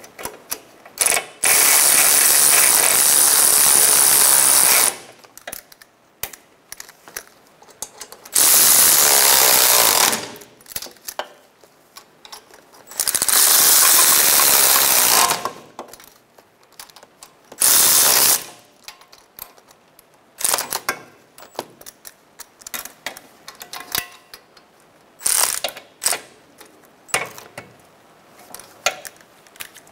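A power ratchet on a long extension runs the front wheel bearing bolts into the steering knuckle in four steady runs, one per bolt. These are followed by many short sharp clicks and brief bursts as the bolts are snugged down in a cross pattern.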